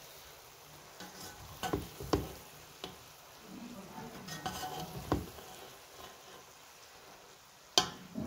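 A spoon mixing and scooping steamed biryani rice in a metal pot, with scattered clinks and scrapes against the pot; the sharpest clink comes near the end.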